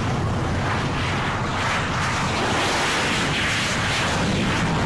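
Piston engines of warbird aircraft running as they taxi, a loud, steady noise with a low rumble underneath.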